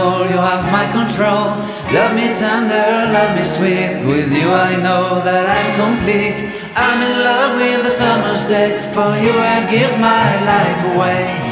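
Background music: a song with singing voices.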